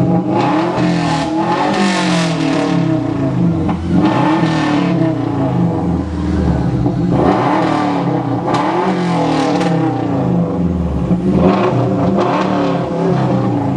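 A Subaru Legacy's 2.5-litre boxer four-cylinder engine revved up and down over and over, its pitch climbing and falling with each blip of the throttle. It has a raspy note.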